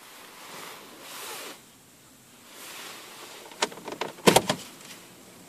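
Ford Fiesta Mk6 round dashboard air vent being gripped and pried out of its housing: a quick cluster of sharp plastic clicks and snaps about three and a half to four and a half seconds in, after softer rustling as the hands take hold of it.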